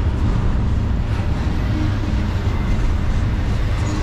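Double-stack intermodal freight cars rolling slowly past: a steady rumble of steel wheels on the rail with a few faint clicks.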